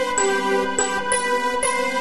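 Instrumental music: held chords with a steady pulse of about two notes a second and short, high ringing notes on the beats.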